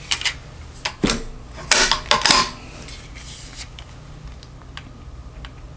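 Torque screwdriver clicking and knocking against a rifle's synthetic stock while the action screws are tightened. There are a few sharp clicks, a knock about a second in, then a quick run of clicks and rattles around two seconds in, the loudest part.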